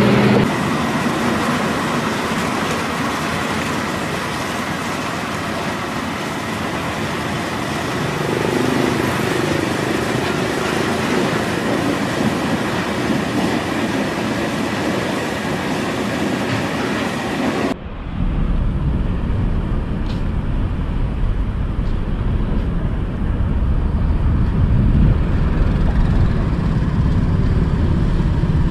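Steady construction-site noise from running machinery, a dense hiss with a faint steady whine. About two-thirds of the way through it cuts to street traffic: a low rumble of cars and pickups driving past.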